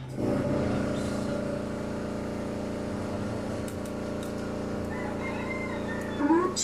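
An engine running steadily at an even pitch, coming on abruptly at the start; a short wavering call glides up and down near the end.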